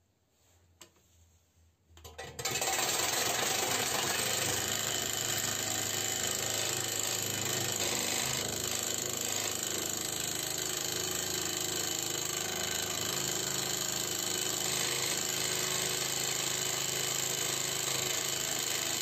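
Einhell hobby scroll saw running steadily without a blade, its motor and reciprocating arms making a loud, even mechanical buzz. It is switched on about two seconds in and runs without a break until it is switched off at the end.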